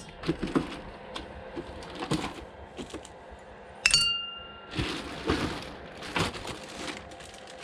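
Unboxing handling: scattered small clicks and knocks of parts and packaging, then a sharp clink about four seconds in that rings briefly, followed by rustling of plastic packaging.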